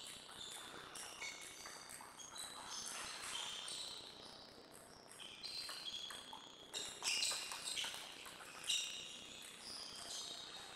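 Table tennis rally: a few sharp clicks of the celluloid-type ball off the bats and table in the second half, over repeated high squeaks of players' shoes on the vinyl sports floor.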